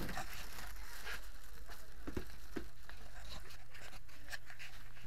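Rustling and handling noise from a body-worn camera swinging as its wearer walks, with several small scattered clicks, over a steady low electrical hum.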